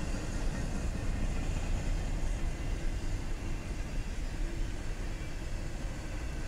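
Double-stack intermodal freight cars rolling past: a steady low rumble of steel wheels on the rails.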